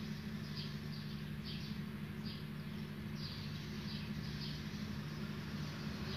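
Birds chirping in short high calls, about one or two a second, over a steady low hum.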